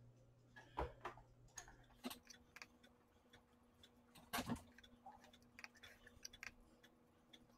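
Faint handling sounds as an electric blanket is moved and plugged into its controller: two soft knocks, one near the start and one about halfway, among many small clicks, over a faint mains hum that changes pitch about two seconds in.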